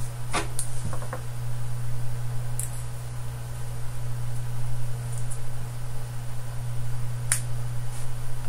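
A few small sharp clicks from a through-hole resistor being handled: its leads bent and the resistor pressed into the holes of a small circuit board. There is a cluster near the start, another click near three seconds and a sharper one about seven seconds in, over a steady low hum.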